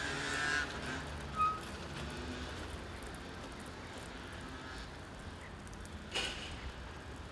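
Steady low rumble of road traffic, with a brief high tone about a second and a half in.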